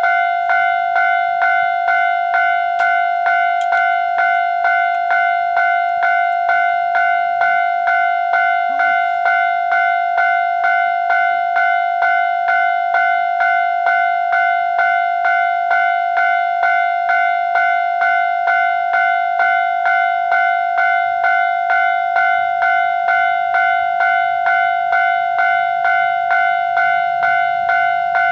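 Japanese railway level-crossing alarm ringing its repeated 'kan-kan' tone, about two strikes a second, steady and loud: the warning that a train is approaching.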